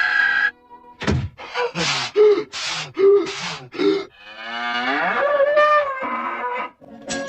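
Cow mooing: a quick run of short calls, then one long moo.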